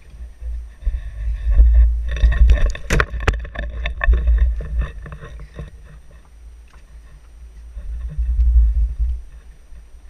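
Knocks, clatter and rubbing against a GoPro housing as it is handled, most of them about two to four seconds in, over an uneven low rumble.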